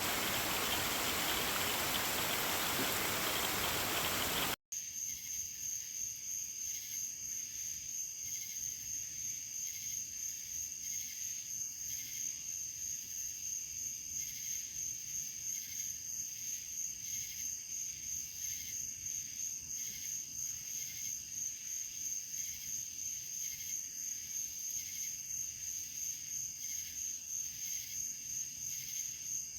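A loud even rushing hiss for the first four or five seconds, cut off suddenly. It is followed by a steady high-pitched insect chorus of crickets trilling, with a regular pulse.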